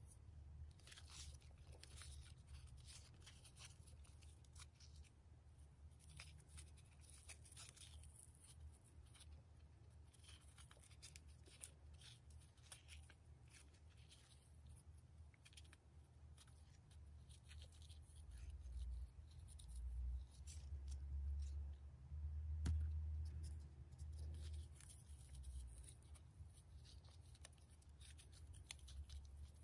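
Faint rustling and scraping of grosgrain ribbon as hands fold and wrap it, with many small clicks. A few dull low bumps come about two-thirds of the way through.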